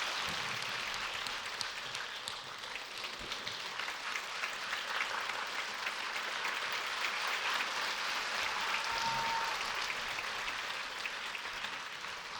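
Audience applauding steadily, dense many-handed clapping that fades out near the end.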